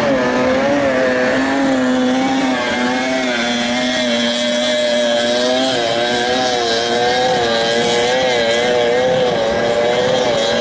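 Several 30 hp outboard engines on racing tunnel boats running hard, their pitch wavering up and down as the boats race. A second, lower engine note drops out about halfway through.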